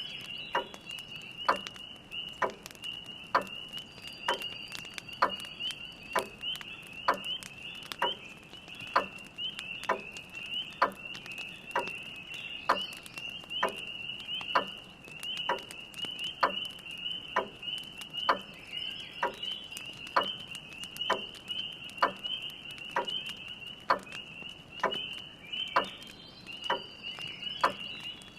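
Spring peeper chorus, a dense steady mass of high peeping calls, over the evenly paced ticking of a grandfather clock, a little faster than one tick a second. Faint irregular crackle of a wood fire underneath.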